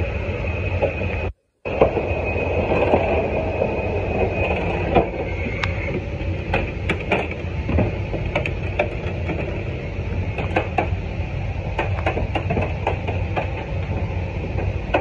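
Steady loud machinery drone with a high whine in an aircraft cargo hold, with sharp metallic clicks and knocks from about five seconds in as the red floor cargo locks are worked by hand. The sound cuts out briefly about a second and a half in.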